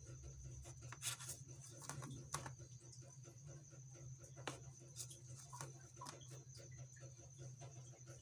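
Faint rubbing and scraping of a plastic knife sawing through the crusts of two stacked slices of white bread, with scattered light clicks.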